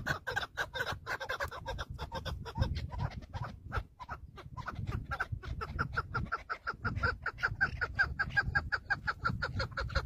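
Chukar partridges calling: rapid repeated clucking notes, several a second, that thin out around the middle and then run on in a fast, even series through the second half.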